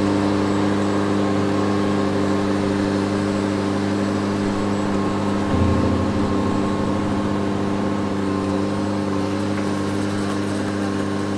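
Engine of an aerial lift running steadily with an even hum. About halfway through its note changes and it gets briefly louder, then runs steadily again.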